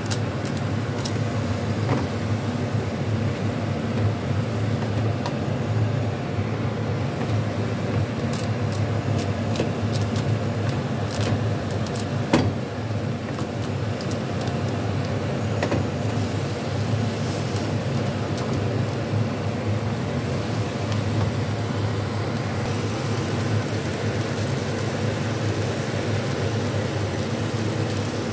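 Rice and egg noodles cooking in broth in a pan on a gas stove, over a steady low hum, with scattered light utensil clicks and one sharper knock about twelve seconds in.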